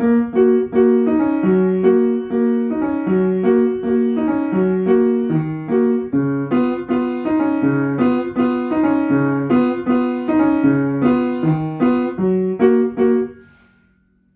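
Piano playing a waltz, each low bass note followed by two lighter chords in a steady oom-pah-pah rhythm. The piece ends about thirteen seconds in on a final chord that fades out.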